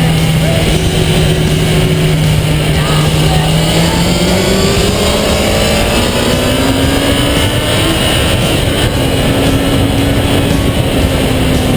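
2008 Kawasaki ZX-10R's inline-four engine under way on track, holding a steady note for a few seconds, then climbing in pitch as the bike accelerates and levelling off near the end. Heavy wind rush over the fairing-mounted camera.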